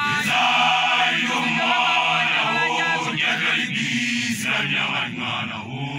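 Makoloane, newly graduated Basotho initiates, chanting together in many young men's voices, a steady unison chant with held notes that briefly thins near the end.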